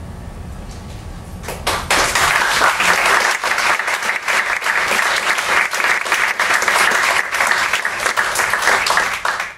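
Audience applauding, breaking out about a second and a half in after a brief hush and carrying on steadily as dense clapping.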